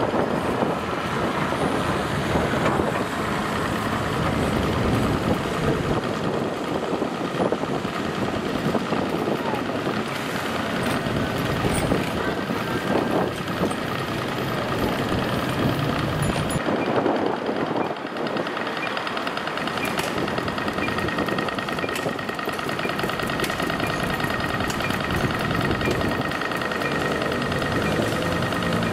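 City street traffic with Siemens Combino trams running on street track, a motor scooter passing, and voices of people nearby. About two-thirds of the way in, a steady high whine joins the mix.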